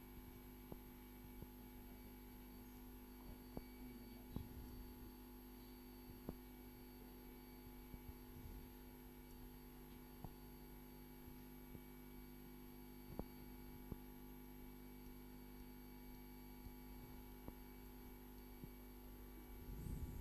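Near silence: a steady electrical hum with a few faint, short clicks scattered through it.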